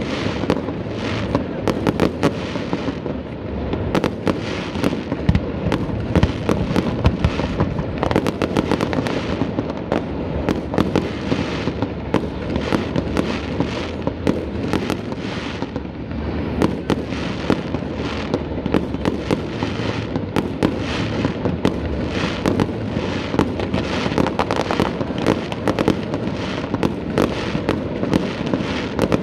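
Aerial fireworks display: a dense, continuous barrage of bangs and crackling bursts, with many shells going off close together over a steady rumble.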